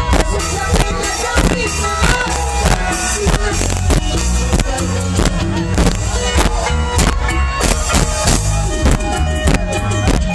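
Loud live band music through a PA with a steady percussive beat and strong bass, and a man and a woman singing into microphones.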